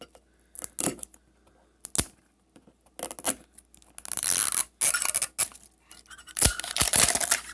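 Hands opening a Pokémon Great Ball collector tin: sharp clicks and taps, then several bursts of scraping and plastic-wrap tearing and rustling as it is unsealed, getting busier near the end.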